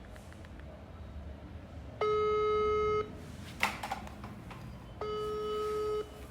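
Ringback tone of an outgoing phone call waiting to be answered: two steady one-second beeps on the same note, three seconds apart, with a short knock between them.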